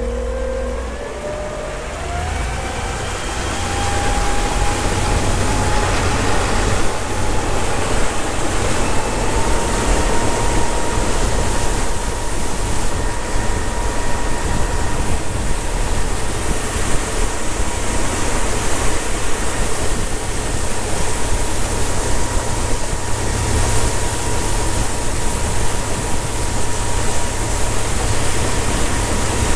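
72-volt, 15 hp electric outboard motor opened up to near full throttle: its thin whine climbs in pitch over the first several seconds, then holds steady. Under it is a loud, steady rush of wind and water as the boat runs at about 17 mph.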